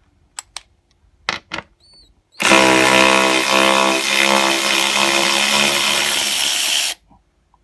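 A few sharp clicks, then a 12V cordless electric ratchet wrench runs steadily for about four and a half seconds, a motor-and-gear whine, in reverse to back a large wood bolt out of wood, and cuts off suddenly.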